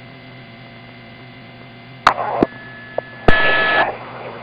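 Two-way police radio keying up without speech: a click and a short burst of static about two seconds in, then another click and burst about a second later carrying a steady beep-like tone, over a low steady hum.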